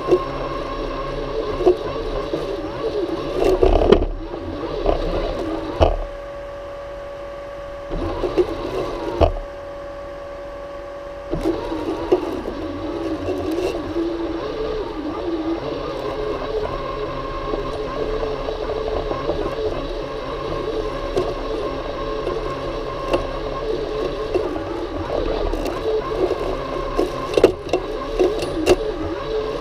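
Worx Landroid M robotic lawn mower's electric motors running close up, with a steady whine. It drops to a quieter hum twice, around six to eight seconds in and again from about nine and a half to eleven seconds, with a few scattered knocks.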